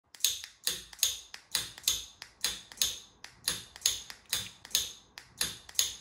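Rapid sharp clicking, about two and a half clicks a second, each a faint click followed by a louder one: a KR1201 433 MHz relay module switching a 12 V solenoid door lock in and out as the remote's button is pressed over and over.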